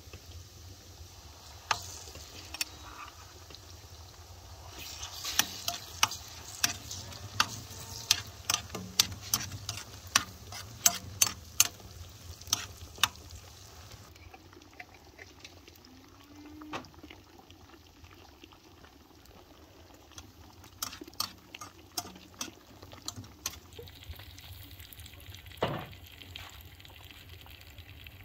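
Metal spoon stirring chopped cabbage and tomato paste frying in a metal pan, clinking against the pan again and again over a low sizzle. The clinks come quickly for several seconds in the first half, then thin out to a few scattered ones.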